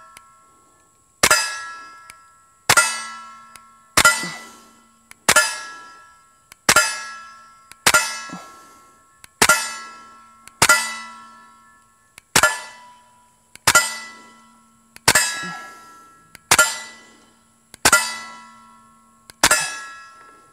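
Suppressed KelTec P17 .22 pistol fired at a steady pace, about one shot every 1.4 seconds, fourteen in all. Each shot is met by the clang of a steel target, which rings and fades over about a second.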